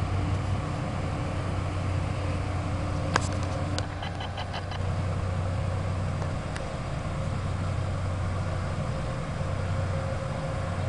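Bombardier ALP-45DP locomotive rolling slowly in at the head of its train with a steady low hum. A sharp click comes about three seconds in, followed by a short run of quick, light ticks.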